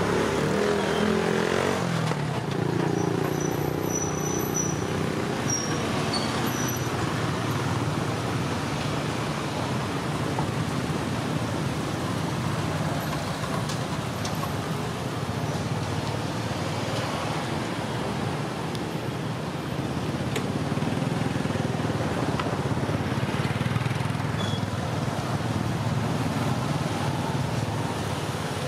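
Steady outdoor background noise: a constant low rumble with no distinct events.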